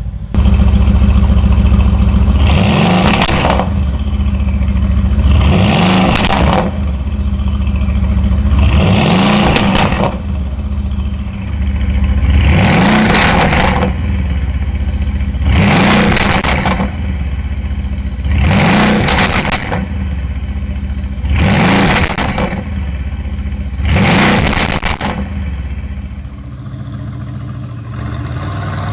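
Mercedes-AMG GT S twin-turbo V8 breathing through a catless iPE titanium valvetronic turbo-back exhaust, idling and blipped about every three seconds, roughly nine sharp revs that each climb and drop back to idle. The idle settles quieter near the end.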